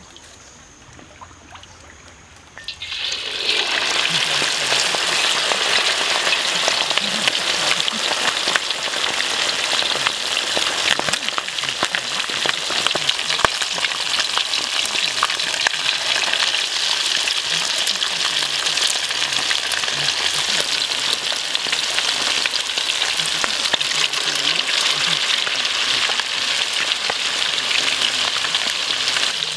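Egg-battered chicken drumsticks frying in hot oil in a wok. The sizzle starts suddenly about three seconds in as the drumsticks go into the oil, then holds as a steady, loud hiss with fine crackling.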